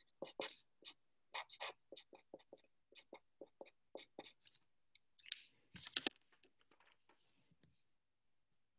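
Marker writing on a white board: a run of short, faint scratching strokes, with a couple of louder squeaks about six seconds in, then it stops.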